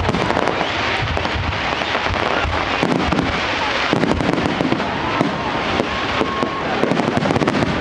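Fireworks display: a rapid, continuous run of bangs and crackles from exploding shells, with dense clusters of reports about three seconds in and again near the end.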